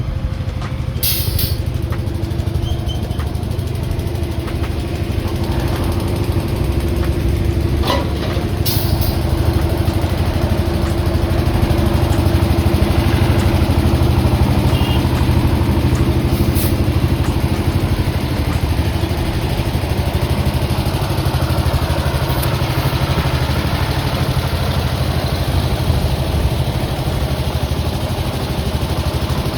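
An engine idling steadily, with a few sharp knocks at intervals over it.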